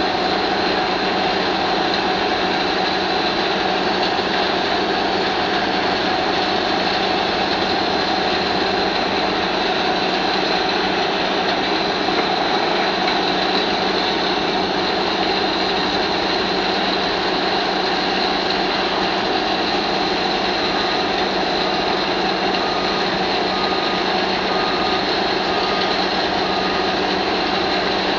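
Tracked mobile impact crusher running steadily while crushing reinforced-concrete and ceramic demolition rubble: a loud, unbroken din of diesel engine and crushing. In the last third, a beeping alarm sounds about once a second over it.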